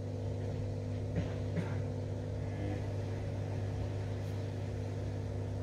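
Samsung Eco Bubble washing machine running its complete self-test cycle, a steady low hum from its pump or motor, with two faint clicks about a second and a half in.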